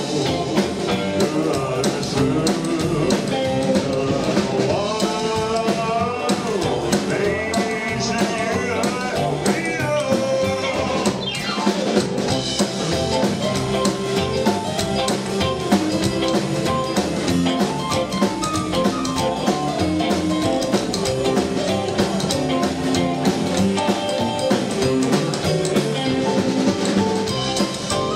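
Live rock-and-roll band playing, with electric guitar over a steady drum-kit beat.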